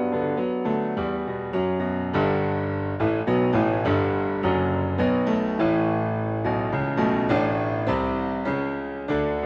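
Background piano music: a melody of struck notes, each fading away after it sounds.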